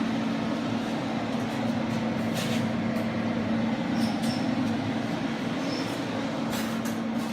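A steady mechanical hum with an even hiss, holding one low tone at a constant level, with a few light clicks over it.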